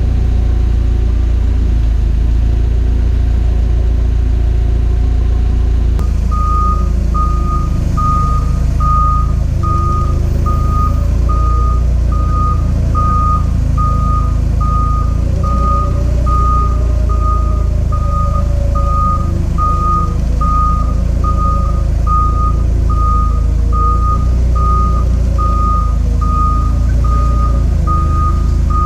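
Forklift engine running with a steady low rumble while its back-up alarm beeps a single high tone, about once a second, starting about six seconds in.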